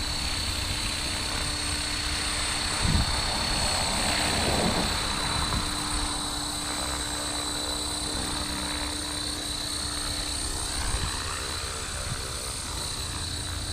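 Blade Fusion 360 electric RC helicopter in flight: its rotor and motor whir steadily, with a swell in level about four to five seconds in.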